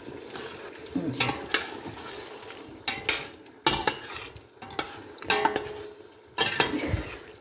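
Metal spoon stirring chicken and potatoes frying in masala in a steel pot: irregular scrapes and knocks against the pot with sizzling in between.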